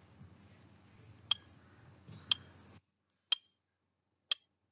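Countdown timer sound effect ticking once a second, four sharp ticks, over a faint hiss that cuts out to silence between the second and third tick.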